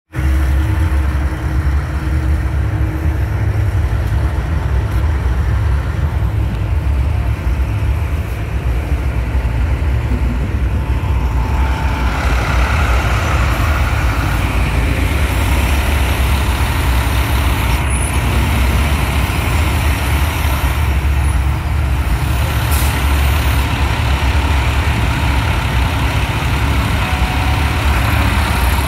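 Trucks and cars passing on the road, with a steady engine rumble; the traffic noise grows fuller about twelve seconds in.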